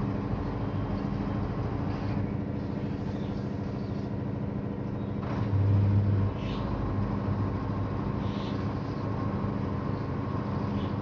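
Washing machine spinning on anti-vibration pads: a steady low motor-and-drum hum, which swells briefly about five and a half seconds in, with a few faint light ticks.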